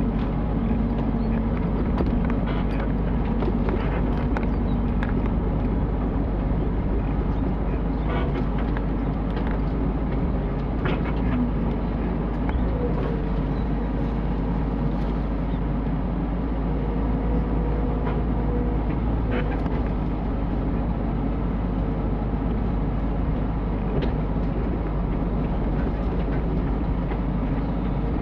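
Mini excavator engine running steadily under work, with scattered short knocks and clunks.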